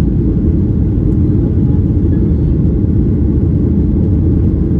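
Jet airliner's engines at takeoff power with the airframe rumbling, heard inside the passenger cabin: a loud, steady, deep rumble.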